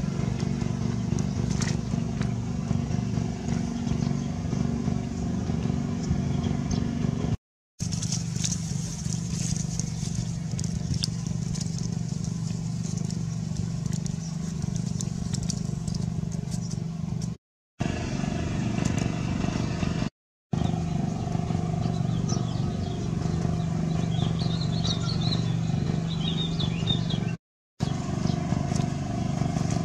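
A steady, low engine-like drone, cut off briefly several times, with some faint high chirps near the end.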